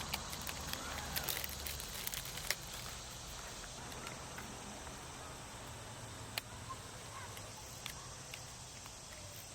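Faint outdoor ambience: a steady low hiss with scattered sharp clicks, most of them in the first couple of seconds and one more about six seconds in.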